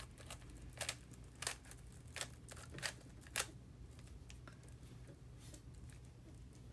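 Rubik's Cube slices being turned by hand: a run of quick plastic clicks and rattles, about six in the first three and a half seconds, then only faint ones.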